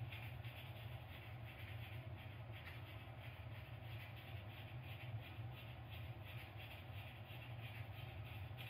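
Low steady hum with faint hiss: room tone.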